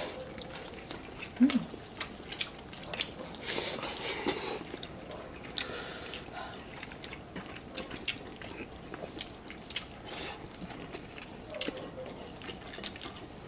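Chewing and mouth sounds of someone eating chicken curry with rice, with many small clicks and wet smacks scattered throughout.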